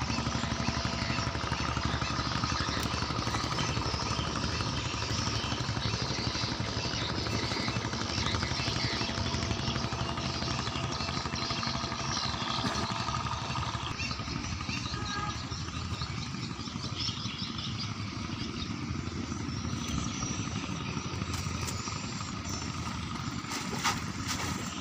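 A small engine hums steadily in the background and grows fainter about halfway through. Near the end comes water splashing and pouring off a fish-trap net as it is lifted out of the river.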